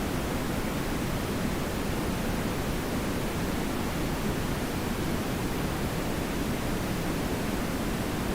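TV static: a steady, unbroken hiss, fuller in the low and middle range than at the top.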